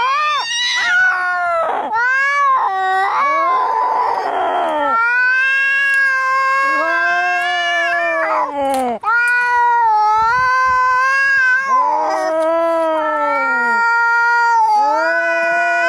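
Angry domestic cats caterwauling: long, drawn-out wavering yowls, one after another with only brief breaks, and a harsh, raspy cry about four seconds in.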